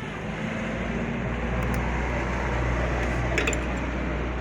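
A steady low machine hum that starts about half a second in, with a couple of light metal clicks near the end.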